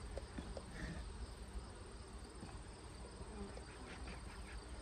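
Honeybees humming around an open hive, with a few faint clicks of the hive tool working the frames.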